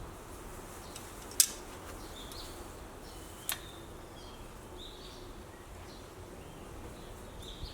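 Two sharp metallic clicks about two seconds apart as a small metal retaining clip is pinched closed on a rear parking brake shoe.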